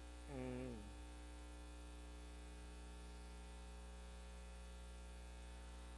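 Steady electrical mains hum with a faint buzz over many fine steady tones. A brief low voice sound, falling in pitch, about half a second in.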